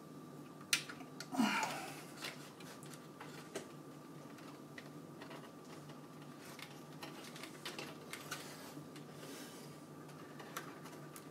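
Faint clicks and rustles of computer cables being handled and pulled through a PC case, with a sharper click about a second in, over a faint steady tone.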